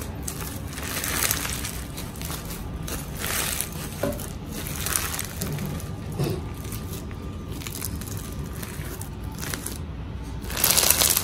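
Crunchy floam slime packed with Bingsu beads, stretched, folded and squeezed by hand, crackling and crunching with each squeeze. The loudest crunching comes near the end.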